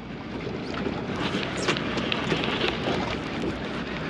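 Wind blowing on the microphone over the rush of open water around a small boat, with a few faint clicks.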